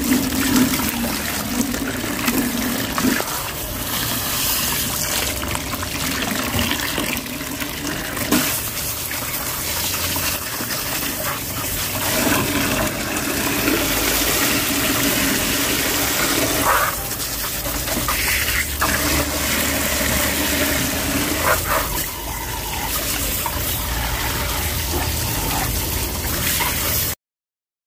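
Water from a garden hose pouring and splashing into a plastic tub while aquarium parts are rinsed under the stream. The sound cuts off abruptly near the end.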